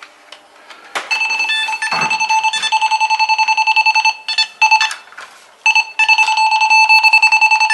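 Cable tracer's probe beeping rapidly with a high electronic tone: it has picked up the tracer's signal on the hidden cable being traced. The beeping starts about a second in, breaks off briefly in the middle, then resumes.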